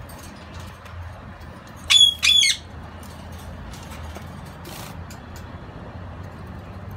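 Green-cheeked conure giving two short, harsh squawks in quick succession about two seconds in, over a steady low hum.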